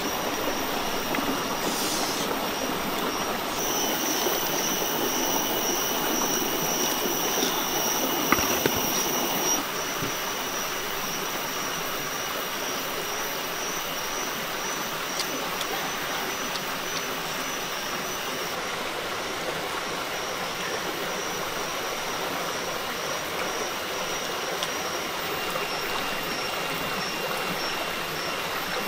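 Steady rushing of running water, like a nearby stream. A thin, high, steady whine sits over it for a few seconds early on.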